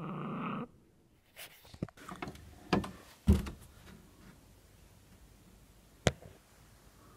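A low pitched drone that cuts off about half a second in, followed by a scattering of knocks and thumps, the loudest about three seconds in, and a single sharp click near six seconds.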